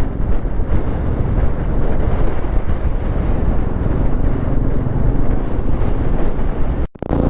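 Strong wind buffeting the microphone of a moving motorcycle, a dense, loud rumble, with the Royal Enfield Meteor 350's single-cylinder engine running beneath it. The sound drops out for an instant near the end.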